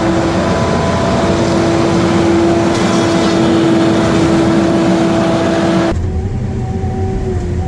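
Heavy forestry machinery running loud: an engine and hydraulic noise with a steady high whine. About six seconds in the sound cuts to a different machine with a deeper hum and a slightly wavering whine.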